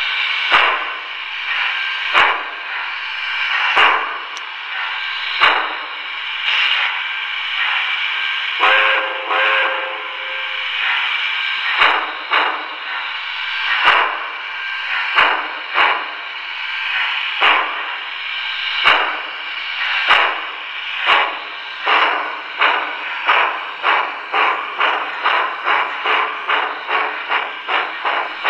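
Steam-locomotive sound effects from the onboard speaker of a Kline Boston and Albany 4-6-6T O-gauge tank engine: rhythmic chuffs under a steady hiss, with a whistle for about two seconds, about nine seconds in. The chuffs quicken to about three a second near the end as the engine picks up speed, and sharp clicks come in now and then.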